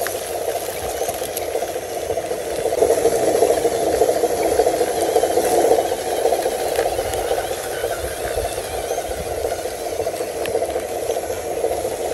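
Radio-controlled model Hino 500 truck's drive motor and gears whirring steadily with rattling as it pulls a soil-loaded trailer over rough dirt, louder for a few seconds about three seconds in.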